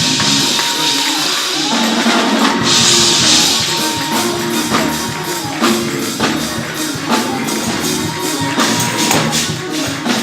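Lively church praise music: held chords over a drum beat, with a tambourine shaking and struck along.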